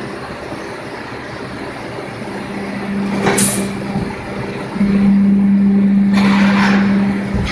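Fence mesh bending machine working through a press stroke on a wire panel. Its drive hums steadily, gives a short sharp hiss about three and a half seconds in, then hums louder from about five seconds, with a rushing hiss near the end.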